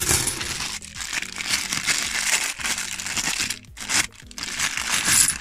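Plastic bank coin bag crinkling and rustling as a hand rummages in it for more £2 coins, in dense bursts with a couple of short breaks.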